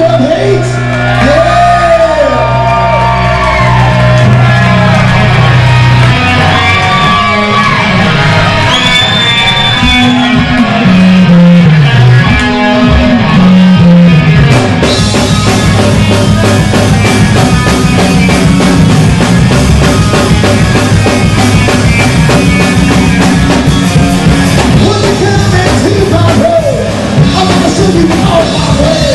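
Live metal band playing loud: a held low bass note under bending sung lines, then a descending bass run. About fifteen seconds in, drums and cymbals come in and the full band plays on, with electric guitars, bass and a male singer.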